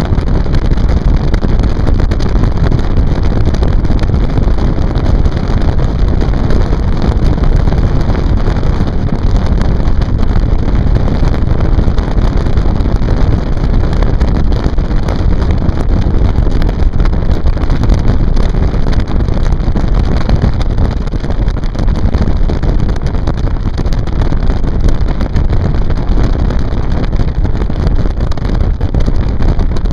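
Motorboat under way, a steady loud rush of engine and water with wind buffeting the microphone.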